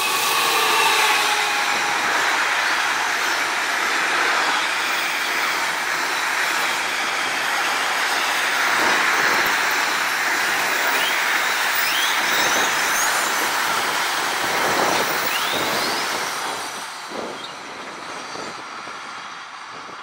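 Container freight train hauled by Siemens ES64U2 electric locomotives passing close by: a steady loud rumble and clatter of wagons rolling over the rails, with a few short, high wheel squeals in the middle. It fades after about sixteen seconds as the train pulls away.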